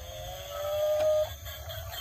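Electronic tone from a battery-powered toy, held and slowly rising in pitch, cutting off abruptly just over a second in. Short tinkly electronic notes follow.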